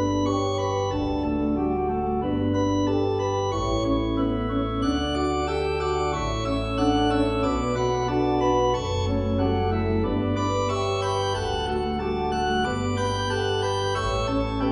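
Background music: held chords over a low bass line that steps to a new note about every two seconds.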